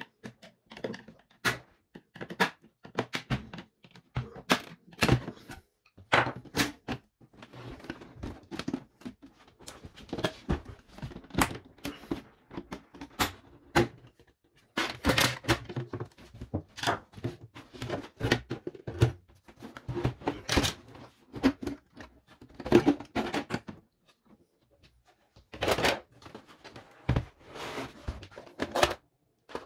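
Plastic housing of a Siemens EQ.5 coffee machine being pried open with a screwdriver: irregular clicks, knocks and clatter of plastic clips and panels as the side cover comes off and is set down.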